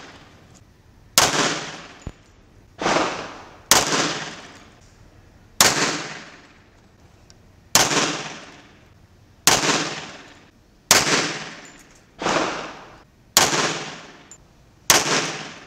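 Pistol shots fired one at a time at a steady pace, about ten in all and a second or two apart. Each shot is a sharp crack that rings out and dies away over about a second.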